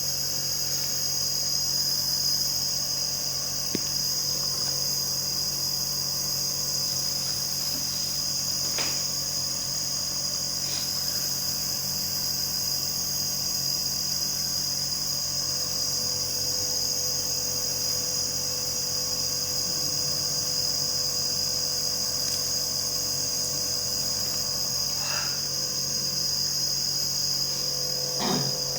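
Nebulizer compressor running steadily: a continuous motor hum under a high, even hiss, with a few faint ticks.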